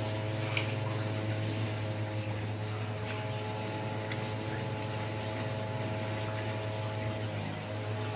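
Electric dog hair clippers buzzing steadily, with a couple of short clicks and a brief dip in the buzz near the end.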